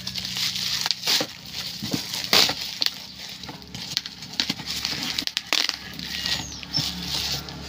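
Packaging being torn open and handled during an unboxing: crinkling and crackling of plastic wrap and cardboard, with many sharp snaps.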